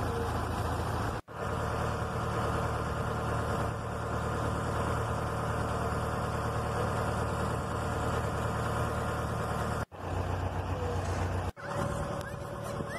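Motorboat engine running steadily while cruising, dropping out abruptly for a moment three times.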